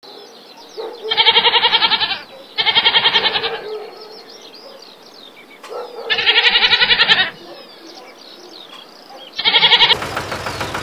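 A goat bleating: four long, wavering calls, the last one short. Near the end a vehicle engine sound starts running.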